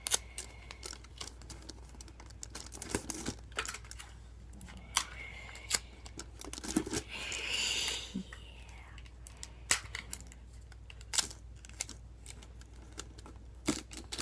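Tape and craft materials being handled: scattered clicks, taps and crinkling, with a short stretch of tearing or rustling about halfway through.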